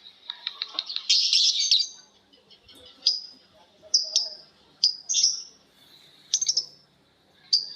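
Lovebirds calling: a quick run of ticking notes, a dense, loud burst of high chatter about a second in, then a string of short, sharp high-pitched calls, one or two at a time.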